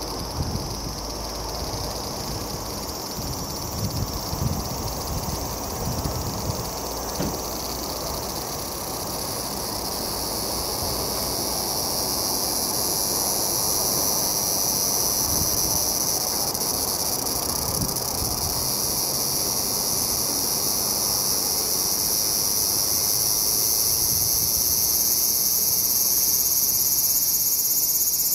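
Large brown cicada (aburazemi) calling: a steady, unbroken high buzz that gradually grows louder.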